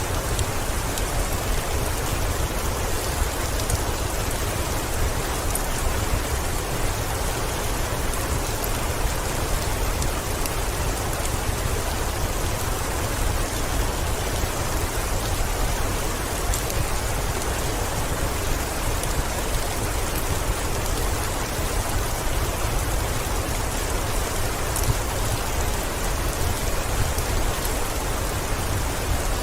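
Heavy rain on a window, a steady even hiss with a deep low rumble underneath and a few faint sharp ticks.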